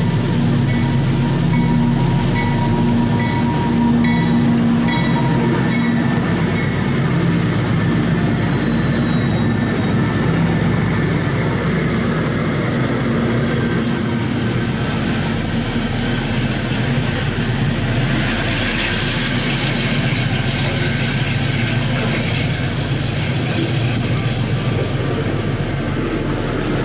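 A GE AC44i diesel-electric locomotive runs close by with a steady, loud engine drone as it hauls a freight train. From about 18 s in, the loaded freight wagons rolling over the rails add a brighter rushing hiss.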